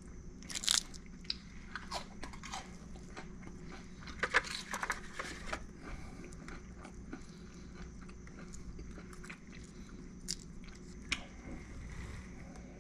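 Crisp-shelled grilled softshell crab cracking and crunching as it is pulled apart by hand, in scattered crackles with the busiest stretch about four to five seconds in.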